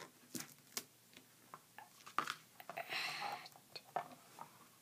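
Faint handling sounds of duct tape on a cutting mat: scattered small clicks and taps, with a brief rustle of the tape about three seconds in.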